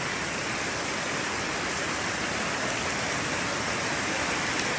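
Fast-flowing floodwater rushing in a strong current, a steady even rush of water.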